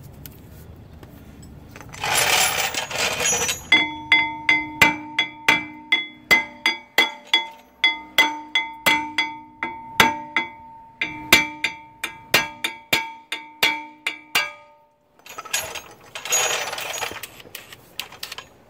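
Hammer striking a tool set in a rust-seized steel brake rotor retaining screw, about two blows a second for some ten seconds, each leaving a metallic ring. The blows are meant to shock the rust loose. There is a short rasping burst just before the blows and another near the end.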